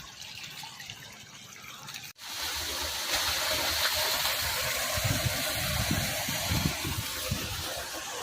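Floodwater rushing and gushing as a steady noise, which gets louder after a sudden break about two seconds in, with low rumbles in the second half.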